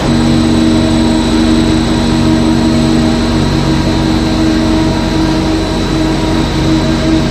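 LDPE film washing line running: a steady, loud machine hum of motors with a few held tones, over the broad noise of water churning in the washing tank.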